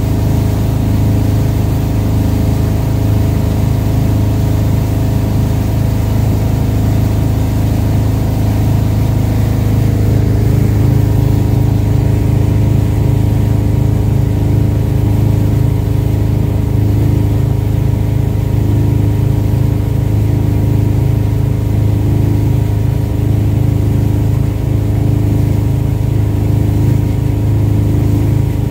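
Towing boat's engine running steadily at wake-surfing speed, a low drone whose tone shifts slightly about ten seconds in.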